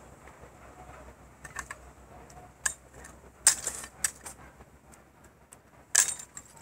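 Glass bottles clinking and knocking as they are handled and set down on the ground, a few sharp clinks with the loudest about three and a half and six seconds in.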